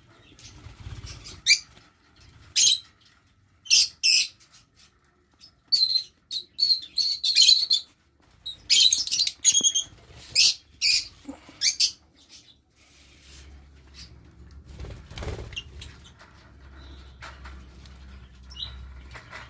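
Lovebirds giving short, shrill chirping calls in quick runs, busiest in the first half and thinning out to a few calls later.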